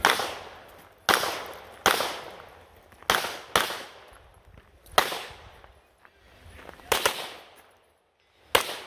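9mm Canik METE SFT Pro pistol firing about eight shots during a USPSA stage, with uneven gaps between them and one quick pair. Each shot is sharp, with a short echo fading after it.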